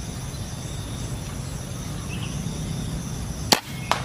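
A single sharp air rifle shot about three and a half seconds in, followed a moment later by a fainter click. A steady chirr of insects runs underneath.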